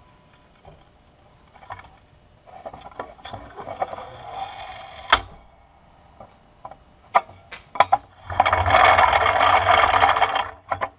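OTC 3½-ton two-speed hydraulic floor jack being let down, with a hiss as the saddle sinks and a clunk about five seconds in as it bottoms out, leaving the car on jack stands. A few clicks follow, then the jack rolls across the concrete floor with a rumbling noise for about two seconds near the end.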